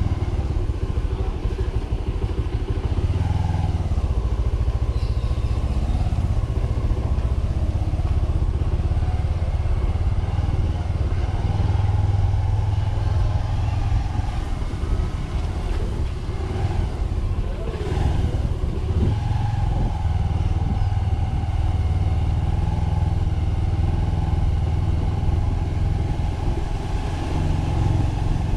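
Motorcycle engine running steadily while riding through traffic, with a sharp click past the middle.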